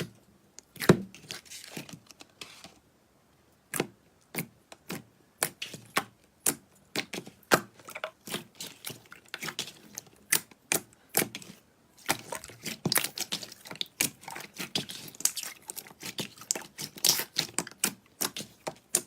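Slime being pressed and stretched, giving a run of sharp, irregular clicks and pops with denser crackling stretches, briefly pausing about three seconds in.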